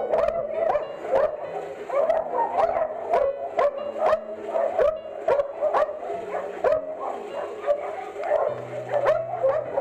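Kennelled dogs barking over and over, about two barks a second, with no let-up. Low background music runs underneath.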